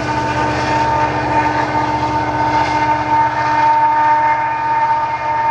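BNSF coal train's rear distributed-power diesel locomotive passing and pulling away: a steady engine rumble with rail and wheel noise, under a steady high tone.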